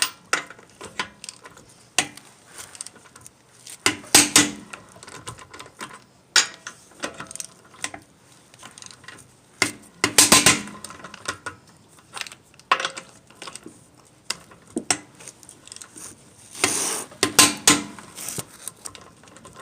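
Click-type torque wrench tightening a wheel's lug nuts one after another: three clusters of sharp metal ratchet clicks about six seconds apart, with single clicks between. Each nut's run ends at the wrench's release click, the sign that the set torque of 125 foot-pounds is reached.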